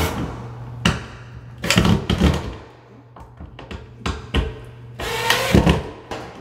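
Cordless drill-driver run in short bursts to drive screws through a plastic shelf-tube receiver into the wall, three bursts with small clicks and taps between them.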